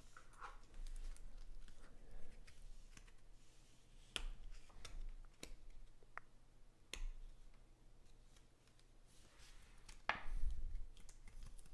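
Faint, scattered clicks and taps of trading cards being handled and set down on a table, with a louder rustle of the card stack about ten seconds in.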